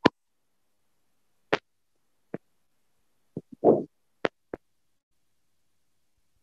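Silence on a noise-suppressed video call, broken by a scatter of brief clicks and pops and one short muffled low sound a little past the middle.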